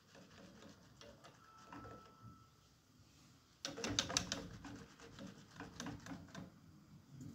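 Wire whisk stirring liquid in an aluminium saucepan, its wires clicking against the pot's sides, quietly at first, then in a quick run of sharp clinks and rattles for about three seconds from a little past halfway.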